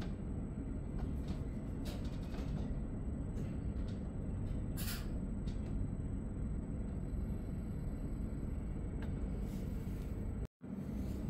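Steady low rumble of an SBB Re 450 DPZ double-deck commuter train running, heard inside the passenger coach, with a few faint clicks. The sound cuts out for a moment near the end.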